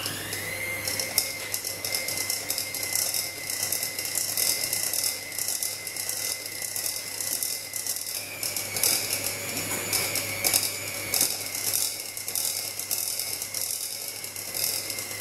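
Handheld electric mixer starting up and beating cream in a bowl. Its motor whine rises to a steady pitch within the first second, with a fast clatter of the beaters over it. The pitch steps up slightly about eight seconds in.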